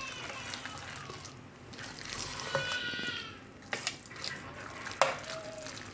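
Metal spoon stirring thick semolina-and-curd batter with chopped vegetables in a stainless steel bowl: wet squelching and scraping, with a couple of sharp clinks of the spoon on the bowl in the second half.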